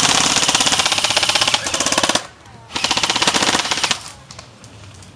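Airsoft rifle firing on full auto in two rapid bursts: a long one of about two seconds, then, after a short pause, a shorter one of about a second.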